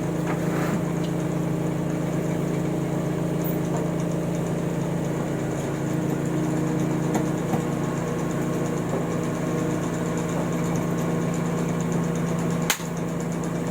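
Steady low mechanical hum, unchanging throughout, with a single sharp click near the end.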